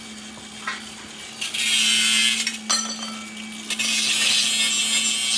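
Two long bursts of harsh, rasping tool noise, one about a second and a half in and a longer one from about four seconds, over a steady hum.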